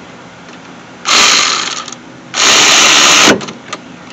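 Cordless power tool with a socket run in two short bursts, driving in the bolts of a new rear brake caliper. The second, longer burst drops in pitch as the tool winds down.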